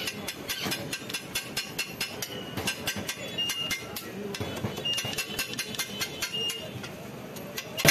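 Metal spatula clacking and scraping on a large flat iron griddle as chicken masala is stirred and chopped in sizzling oil, with rapid, irregular strikes several times a second that thin out near the end.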